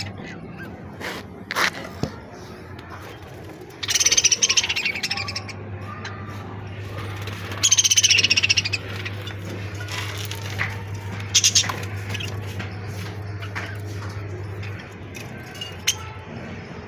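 Pet budgies, with two loud bursts of high-pitched bird sound about four and eight seconds in, and a few scattered clicks. A steady low hum underneath stops near the end.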